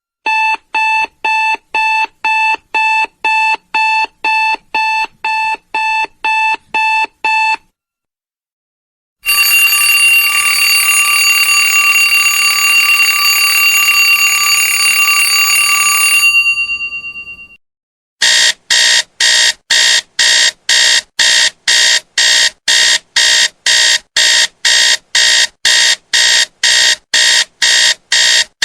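Three alarm clock tones in turn: a pitched electronic beep repeating about three times a second, then after a short pause a continuous ring for about seven seconds that fades out, then a brighter, shriller beep repeating about four times a second.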